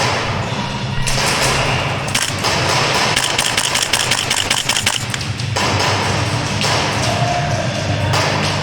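A rapid string of airsoft gunshots, sharp evenly spaced cracks at several a second for about three seconds starting a couple of seconds in, over steady indoor arena noise.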